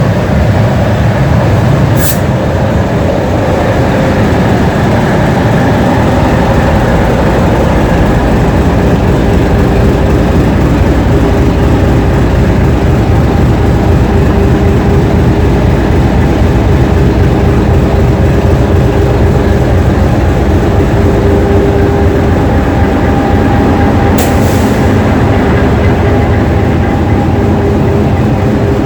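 English Electric DG-class diesel locomotive engine running steadily and loudly, with a held whine in the middle of its sound. Two brief sharp clicks, about two seconds in and near the end.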